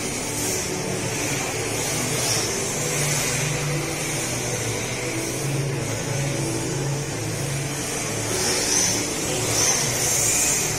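Electric motors of RC drift cars whining, rising and falling as the cars accelerate and slide around the track, over a steady low hum.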